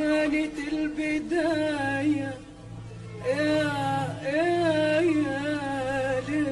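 Woman singing an Arabic song with ornamented held notes and wide vibrato, pausing briefly about halfway, over a steady instrumental accompaniment.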